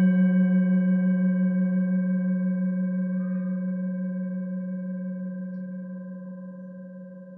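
A deep ringing tone from a struck metal sound-healing instrument, with bright overtones above it, pulsing slowly in a wobble as it fades away.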